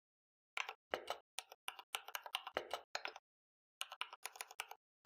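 Typing on a computer keyboard as the BASIC line 10 PRINT "HELLO" is entered: a run of quick, irregular keystrokes starting about half a second in, with a short pause just after three seconds.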